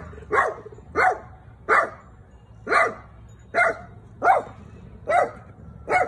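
A dog barking in play: about eight short, sharp barks, a little under a second apart.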